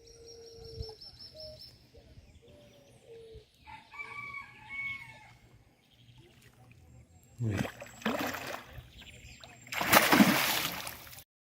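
A rooster crowing in the background, a pitched call lasting about a second. Near the end come two loud bursts of rushing noise, the louder and longer one about ten seconds in.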